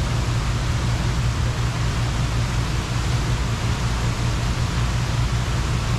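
Steady rush of water from Buckingham Fountain's jets falling and splashing into its basin, an even hiss with a strong deep rumble underneath.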